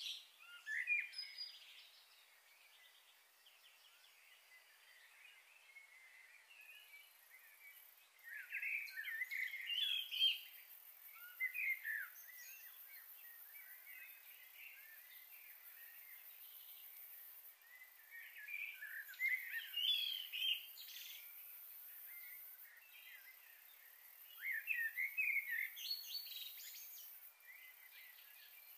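Small birds chirping in four short bouts of rapid calls, with quiet stretches between.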